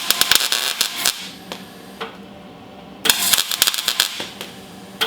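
MIG wire-feed welder crackling in two short bursts of about a second each, with a brief blip near the end: tack welds on the Beetle's new sheet-steel floor pan.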